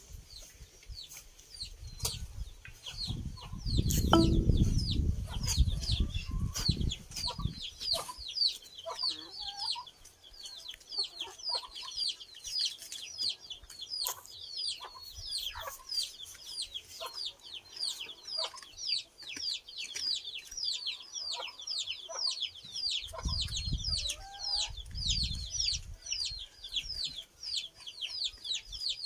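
Chickens clucking, over a continuous run of short, high, falling chirps about three a second. Low rumbling noise comes in for a few seconds early on and again near the end.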